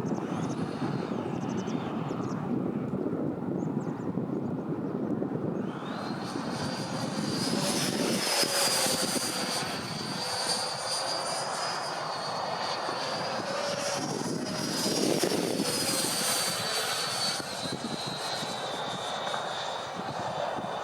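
Twin 80 mm electric ducted fans of a Freewing MiG-29 model jet whining in flight. The high fan whine swells in about six seconds in and slides gently up and down in pitch as the jet flies, growing louder twice.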